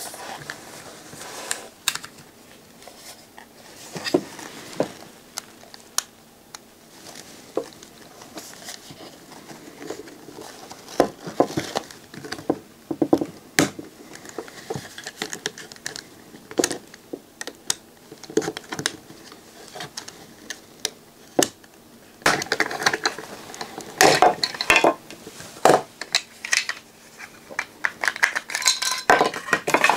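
Plastic case of an Inverto LNB being pried and cut open with a utility knife: a run of sharp clicks, creaks and cracks of plastic, most frequent in the last several seconds.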